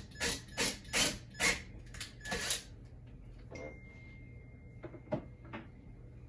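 Rough scraping strokes of a screw tip being twisted by hand into the wall to start a pilot hole, about two a second, stopping about two and a half seconds in. A few light clicks follow near the end.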